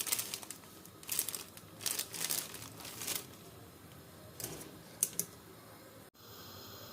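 Irregular rustling and crinkling of something being handled, in several bursts over the first three seconds, then a few sharp clicks about five seconds in; the sound cuts off abruptly near the end.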